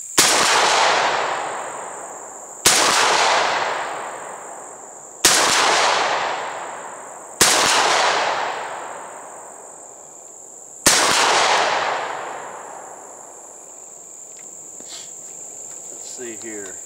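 Five shots from a Derya MK-10 12-gauge semi-automatic shotgun firing Winchester high-pressure slugs, two to three seconds apart, each followed by a long echo that dies away over about two seconds. A steady high cricket trill runs underneath, and a few light clicks come near the end.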